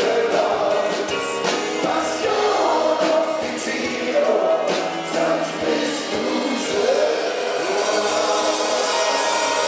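Live band playing a song, with several male voices singing together over acoustic guitar and drums.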